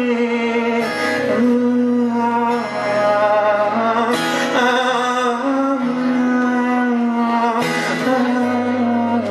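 Solo live acoustic performance: a man singing with long held notes over his own strummed acoustic guitar.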